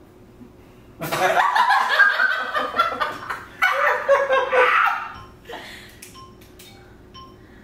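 People laughing together, breaking out about a second in and dying down after about four seconds.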